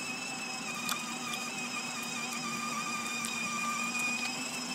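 Electric motors and gearboxes of a child's battery-powered ride-on toy Mercedes running at a steady speed, a constant high whine.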